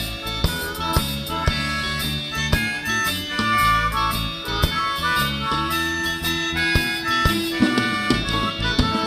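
Background music: an instrumental passage of a pop song, with held melodic notes over a steady beat.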